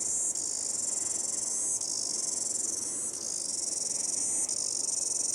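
A steady, shrill chorus of insects in bush, high-pitched and dense, its pitch shifting slightly every second or so.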